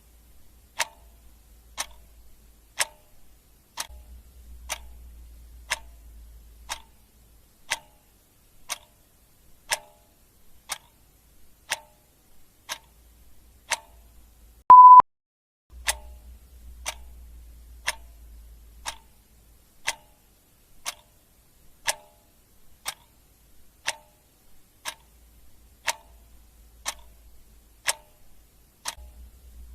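Clock ticking steadily, about one tick a second. About halfway through a single short electronic beep of steady pitch sounds, louder than the ticks.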